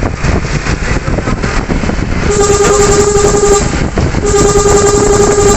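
Truck horn sounding two long blasts of one steady pitch, the first a little over a second long starting about two seconds in and the second starting near four seconds and still going at the end, over loud rumbling engine and road noise.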